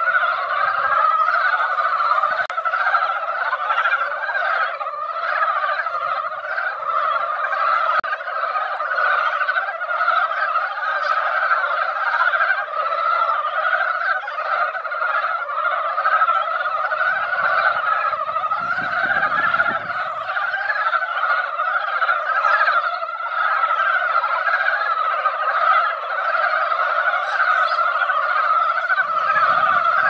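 A dense breeding chorus of many Korean brown frogs calling together at a pond, their overlapping calls merging into one continuous, unbroken din. This is the spring spawning gathering, when the males call in numbers.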